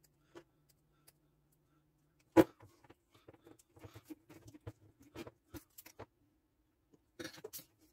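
Fast-forwarded handwork on a heavy rubber-jacketed power cord: scattered small clicks and snips of side cutters and a knife nicking and peeling away the outer jacket, with one sharp click about two and a half seconds in and a short cluster of clicks near the end.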